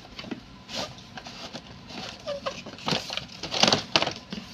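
Cardboard box and clear plastic packaging being handled and opened: scattered rustles, crinkles and scrapes, loudest near the end.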